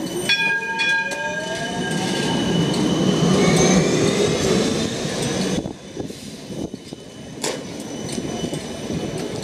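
Electric D-class (Siemens Combino) trams: a rising electric motor whine with steady high tones as one pulls away, then the rumble of another rolling close past, loudest about three to four seconds in and dropping off sharply a couple of seconds later.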